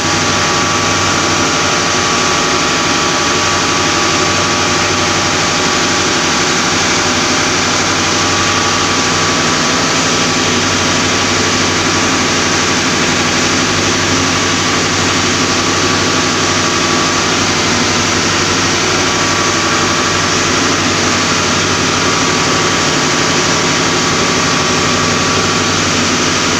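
Engine-room machinery running: a loud, steady, unbroken din with an even hiss and a constant low hum.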